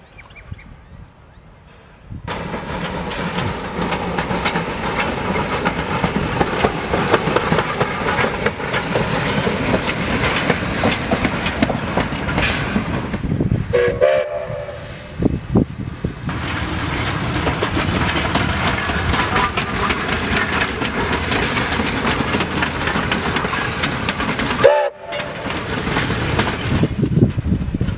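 1917 South Australian Railways T class steam locomotive No. 251 running past with a train, its exhaust beats and wheels clattering over the rail joints. It is faint at first, then loud from about two seconds in. Two brief whistle notes come about halfway and near the end.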